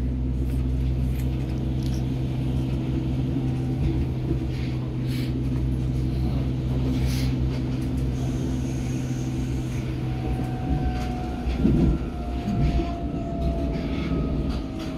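Hamburg DT5 U-Bahn train running, heard from inside the car: a steady low rumble and hum of the running gear with clicks from the rail joints. From about ten seconds in, the traction motor whine falls slowly in pitch as the train brakes for a station.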